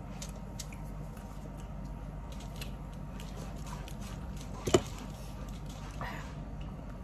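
Eating sounds: small clicks and smacks of chewing and handling shrimp with gloved hands, over a steady low hum. One sharp knock about four and a half seconds in.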